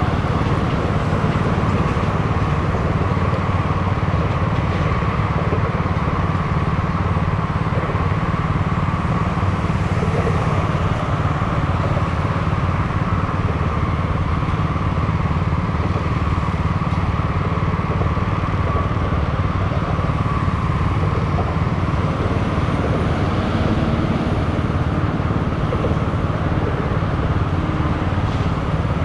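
Small motor scooter engine idling steadily while stopped, with cross traffic passing.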